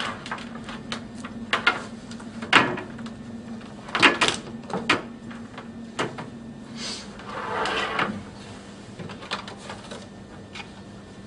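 Cables and plastic connector plugs being handled and set down on a wooden tabletop: scattered knocks and clicks, with a short scraping rustle about eight seconds in. A faint steady hum lies underneath.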